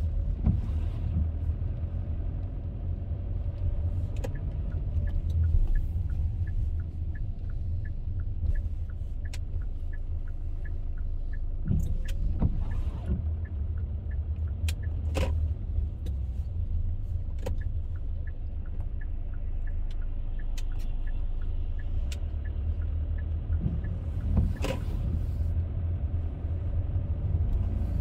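Car driving: a steady low rumble of engine and tyres on the road, with a light regular ticking, about two a second, through the middle stretch and a few sharp knocks.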